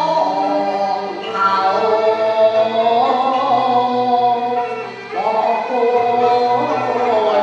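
A Cantonese operatic song (粵曲) sung over instrumental accompaniment. The voice holds long notes and slides between pitches, with a short break about five seconds in before the singing picks up again.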